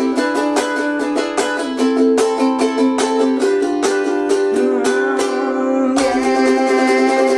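Ukulele strummed fast in a driving beat through a C, E7, Am, G7 chord progression, the song's ending. About five seconds in, one chord rings out briefly before a hard strum restarts the rhythm.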